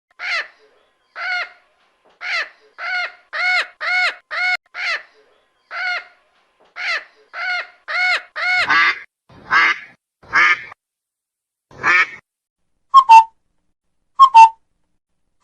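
A duck quacking: a series of about a dozen short quacks over the first eight seconds. After that come four longer, harsher calls and then two pairs of short, sharp calls from other birds.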